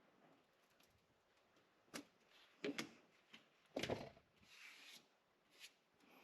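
Faint handling of a pocketknife and small tools: a few sharp clicks and knocks, then a short scrape, with near silence around them.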